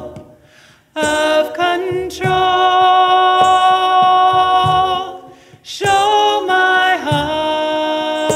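Lead singer and a women's vocal ensemble sing long held notes in harmony, with soft hand-drum beats underneath. The singing breaks off briefly at the start and again about five seconds in.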